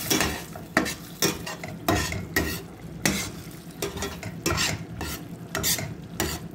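A utensil stirring thick tomato-and-cream pasta sauce in a stainless steel pot, scraping the pot in quick, uneven strokes about twice a second.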